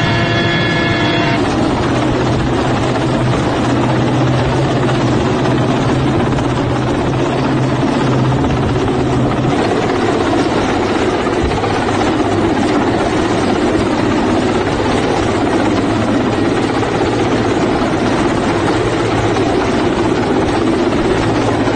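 Military helicopter hovering low, its rotor and engines making a loud, steady noise. A steady pitched whine is heard for about the first second, before the footage cuts.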